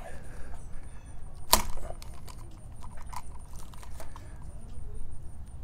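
Spline roller pressing spline and screen mesh into a screen track: scattered small clicks and creaks, with one sharper click about a second and a half in.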